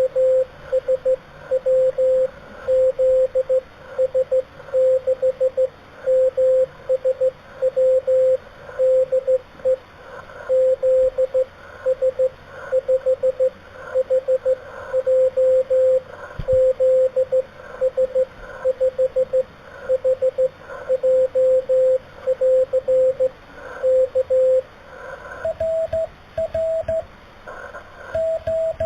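Morse code (CW) on a ham radio: a single steady tone keyed into slow dots and dashes. Near the end a second keyed tone, slightly higher in pitch, takes over.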